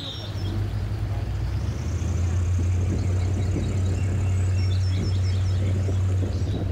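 Airboat engine and propeller running under way, picking up speed about a second and a half in, then holding a steady low hum with a faint high whine above it.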